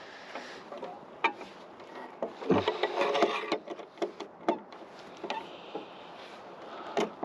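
Steel reinforcing bars being bent into stirrups on a homemade hand bending jig: scattered sharp knocks and clinks of rod against the jig, with a busier stretch of knocking and scraping near the middle.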